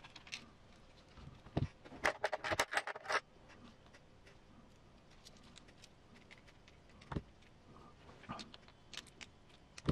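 Small plastic and metal parts clicking and rattling as a hex driver and an RC car's plastic transmission housing are handled: a thump about one and a half seconds in, a quick run of sharp clicks soon after, then a few scattered single clicks.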